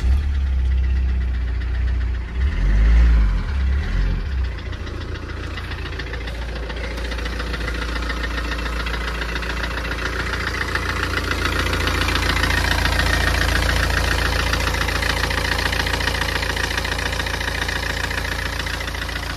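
Tata Safari Storme's 2.2-litre diesel engine catching and running unevenly for a few seconds, then settling into a steady idle with an abnormal knocking noise. The mechanic puts the knock down to a piston that seized from running dry of coolant, leaving the bore oval so the piston shakes in it.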